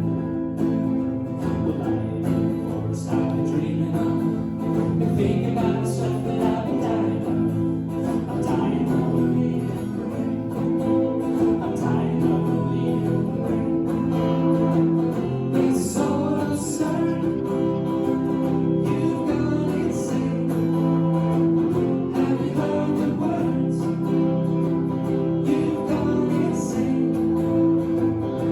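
Live band music with guitar, a steady instrumental passage recorded through a cell phone's microphone.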